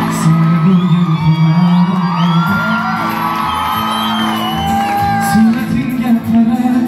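Live band music over outdoor loudspeakers, a keyboard holding low notes that change every second or two, with people in the crowd shouting and whooping.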